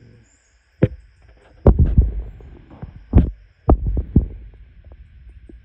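Footsteps crunching and thudding through dry eucalypt leaf litter and sticks at walking pace, with handling bumps on the phone. A steady high buzz of insects runs behind them.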